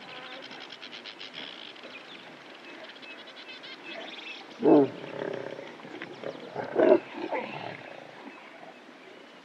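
Well-fed lion giving two short growls, about five and seven seconds in, over a faint steady background of outdoor ambience.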